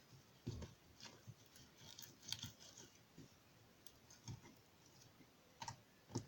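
Clear glue slime being stretched and squished by hand: faint, scattered sticky clicks and soft squelches.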